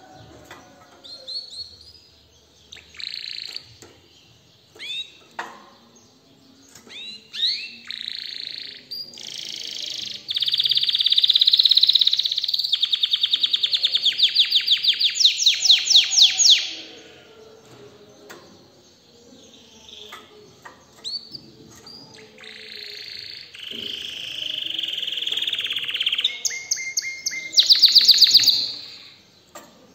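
Domestic canary singing in full song: varied phrases of high chirps and long, fast trills of rapidly repeated notes, loudest in the middle and again in a burst near the end.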